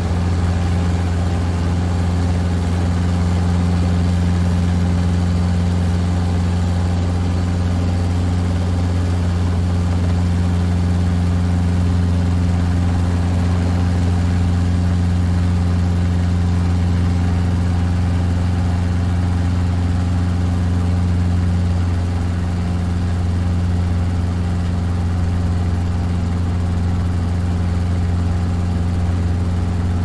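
Drone's propellers and motors humming steadily in flight: a low, even hum with higher overtones above it, dipping slightly in level about two-thirds of the way through.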